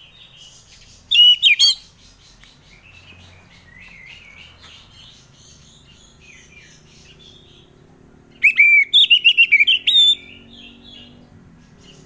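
Orange-headed thrush singing: two loud bursts of rapid, sweeping whistled notes, a short one about a second in and a longer one of many quick notes near eight seconds in, over softer continuous chirping.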